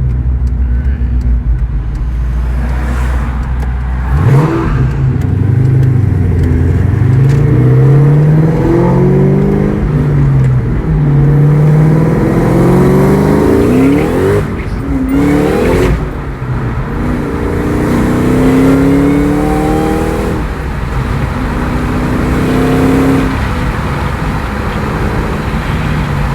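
Supercharged 4.6-litre V8 of a 2003–04 Mustang SVT Cobra ("Terminator") accelerating on the road. The engine note climbs in pitch in several runs, dropping back between them as it goes up through the gears.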